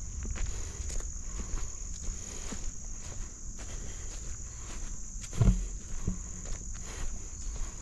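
A steady, high-pitched insect chorus over footsteps on a trail, with one louder thump about five and a half seconds in.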